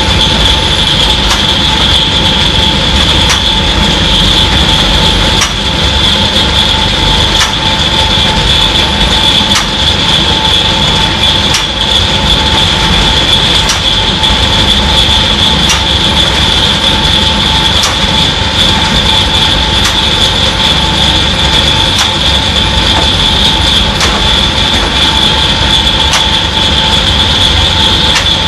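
Fine stone concrete pump running steadily and loudly, a high whine over a continuous mechanical din, with a faint click about every two seconds.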